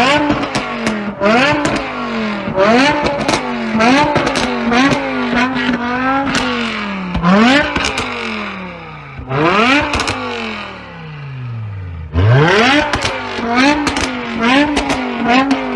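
A BMW's engine revving hard over and over. The pitch climbs fast, hangs high with quick wobbles, then drops right down about seven, nine and twelve seconds in before climbing again. Many sharp cracks come through over it.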